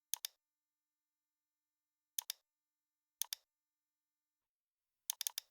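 Computer mouse clicking: a quick pair of clicks near the start, another pair about two seconds in and again about three seconds in, then a fast run of four clicks near the end.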